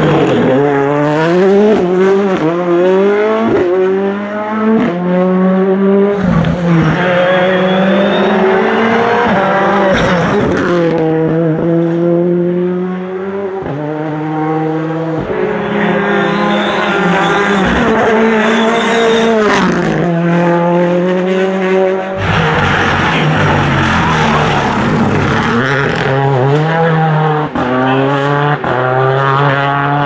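Rally cars, Ford Fiesta R5s among them, accelerating hard one after another out of tight corners. Their turbocharged four-cylinder engines rev up through the gears, the pitch climbing and then dropping at each upshift, over and over.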